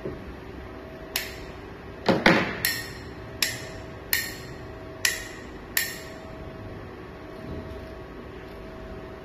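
Sharp metallic taps and clicks, each with a brief ring, as metal impact-wrench parts are knocked together and worked into the housing. There are about eight, under a second apart, and the loudest is a quick cluster about two seconds in. They stop about six seconds in.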